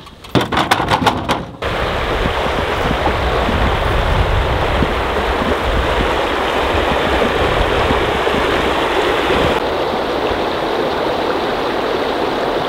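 Creek water running over rocks, a steady rushing. Before it, in the first second and a half, a few short knocks and rattles.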